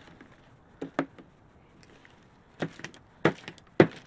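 A rubber brayer and paint tubes being handled and set down on a work table: a few sharp clicks and knocks at irregular intervals, most of them in the second half, the loudest near the end.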